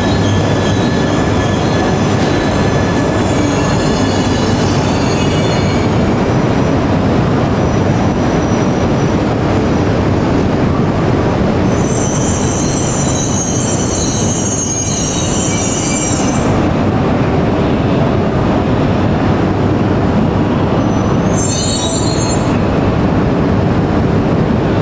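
E3-series and E2-series Shinkansen coupled train pulling into the platform with a steady running rumble. High-pitched wheel and brake squeals rise over it three times.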